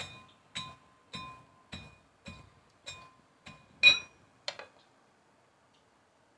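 Stainless steel pestle pounding fried besan dough balls in a stainless steel mortar (havan dasta), crushing them into coarse crumbs: about ten strikes, roughly two a second, each with a short metallic ring. The loudest comes near four seconds in, and the pounding stops about five seconds in.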